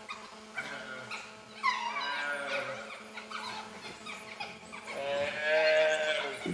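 Animal cries: a few drawn-out, pitched calls. One starts about two seconds in and slides down in pitch. The loudest is a long call about five seconds in that rises and then falls.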